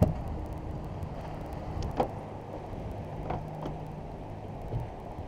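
Wind and water noise aboard a small center-console boat, under a low steady hum. A sharp knock comes right at the start and another about two seconds in, with a few fainter knocks after.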